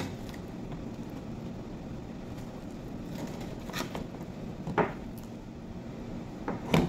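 A knife slicing a grilled steak on a metal sheet tray: several short clicks and taps of the blade on the tray, the sharpest about five seconds in and near the end, over a steady low room hum.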